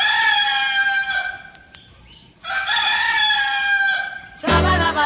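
A rooster crowing twice, each crow one long call of under two seconds that drops in pitch at its end. Music begins near the end.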